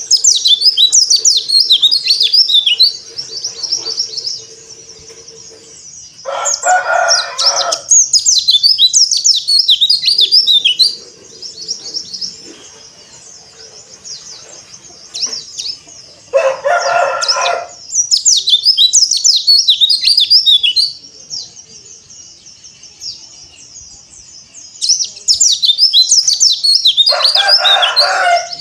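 Pleci (white-eye, Zosterops) singing in fast, high twittering phrases a few seconds long, with pauses between them. A lower, longer call, about a second and a half each, cuts in three times.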